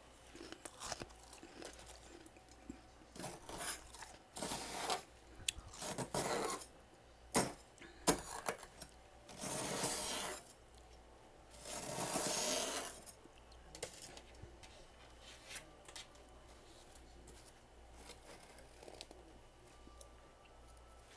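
Close-up crunching of freezer frost being eaten: a run of crisp crunches and sharp clicks, then two longer crunching stretches about ten and twelve seconds in, after which it dies down to faint scattered clicks.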